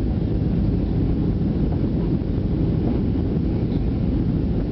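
Steady low rumble of a jet airliner's engines and rushing air, heard from inside the cabin during the descent to landing with the flaps extended.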